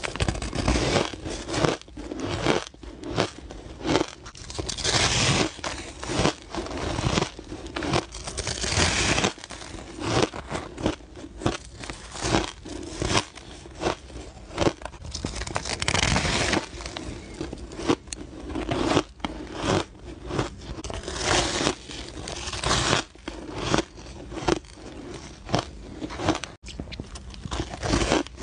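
Close-miked crunching of frosty ice being bitten and chewed: sharp, irregular crunches bite after bite, with longer stretches of grinding crackle as mouthfuls are chewed.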